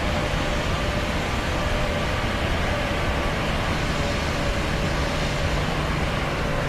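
Steady airplane drone: engine and airflow noise at an even level, with a faint steady hum running through it.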